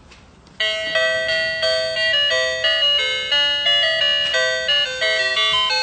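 A children's English-learning toy tablet playing an electronic melody of short, steady notes through its small speaker, starting about half a second in.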